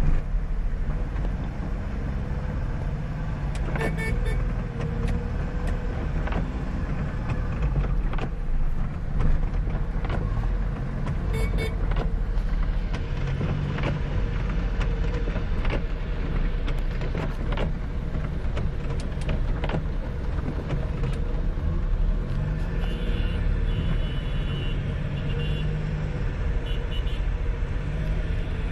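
Steady low rumble of a car's engine and its tyres on a wet road, heard from inside the cabin. Occasional sharp clicks and a few brief high-pitched tones sound over it.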